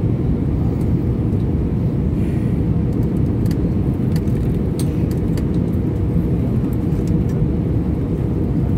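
Steady cabin noise of an Airbus A320-214 airliner on approach, heard from a window seat: an even, low roar of engines and airflow with a faint steady hum and a few faint ticks.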